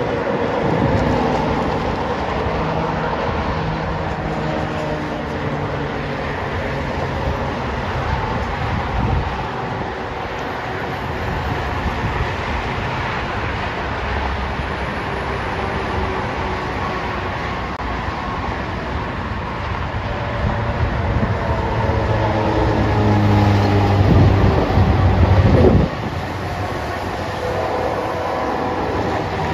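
Diesel locomotives of a freight train running past, a steady engine rumble. The low rumble swells a few seconds before the end and then drops off suddenly.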